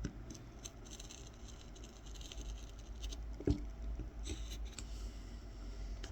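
Tip of a Mora 106 carving knife scoring and stabbing short cuts into wild cherry wood: a string of small, scratchy ticks and scrapes in little clusters, with one louder knock about three and a half seconds in.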